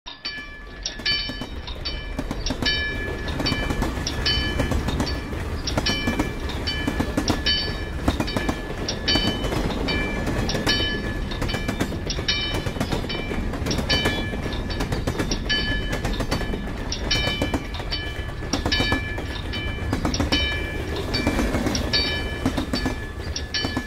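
Railroad wigwag crossing signal in operation: its bell strikes ring out repeatedly, about two to three a second, over a steady low rumble.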